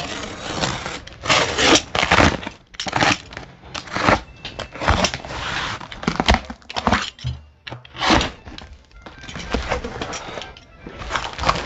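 Packing tape being slit and a large cardboard box's flaps being pulled open, in a run of irregular scraping, crackling and tearing sounds.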